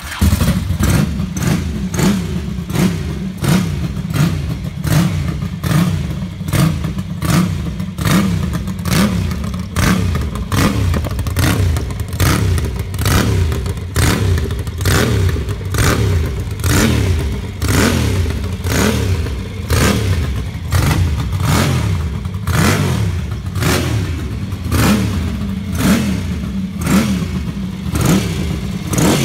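Ducati Pantah TT2 racer's air-cooled 90-degree V-twin fires up and is warmed up. The throttle is blipped over and over, the revs rising and falling roughly once a second.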